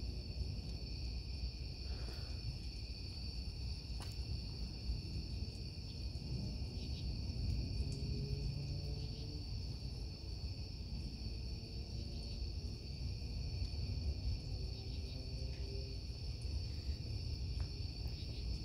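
Steady high chirring of a night insect chorus of crickets, over a low rumble of distant thunder that fades down at the start and then lingers faintly.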